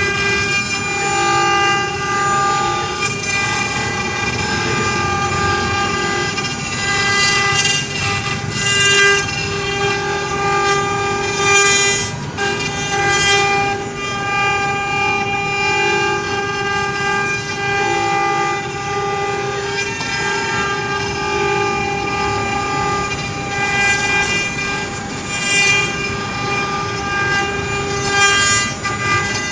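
CNC wood-carving router running, its spindle giving a steady high whine while the bit cuts wood, with short bursts of hiss every few seconds.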